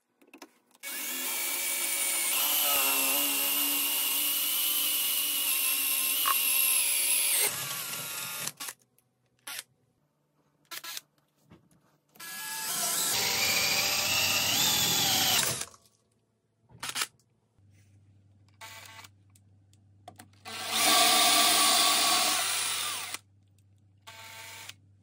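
A power drill runs three times: first for about six seconds as a twist bit for metal bores into a steel pipe, then for about three seconds as a wood bit bores into a pine block, its whine rising in pitch, then for about three seconds near the end as a masonry bit drills into a concrete wall. Short clicks and knocks fall in the pauses between the runs.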